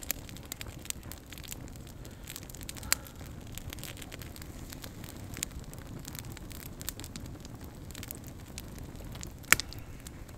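Open log campfire crackling, with scattered sharp pops; the loudest pop comes near the end.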